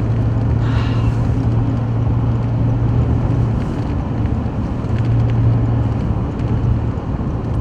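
Car interior while driving: the steady hum of the engine and the rush of tyre and road noise.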